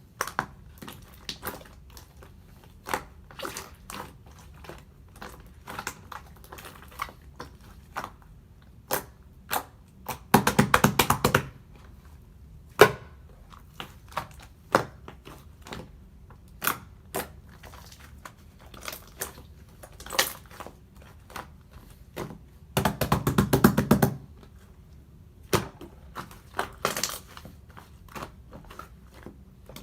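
Slime being pressed and squished by hand, giving scattered sharp clicking pops. Twice, about a third of the way in and again past two-thirds, it gives a second-long run of rapid crackling pops.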